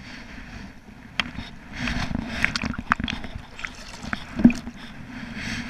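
Water sloshing and splashing right at the microphone as a person wades chest-deep and moves an arm through the water, with scattered sharp clicks; the loudest splash comes about four and a half seconds in.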